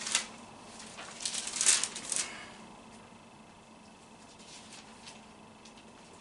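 Thin Bible pages being leafed through and turned, a crackly paper rustle for about a second near the start, then faint room tone.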